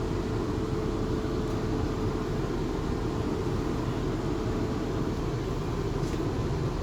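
Inside a moving Class 450 Desiro electric multiple unit's passenger coach: the steady running noise of the train, a constant low rumble of wheels and running gear with a steady hum.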